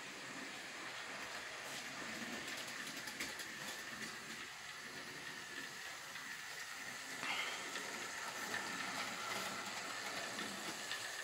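Bachmann Thomas the Tank Engine model locomotive running along the track hauling mail coaches: a faint steady whine with a hiss of running gear on the rails, growing a little louder and higher about seven seconds in.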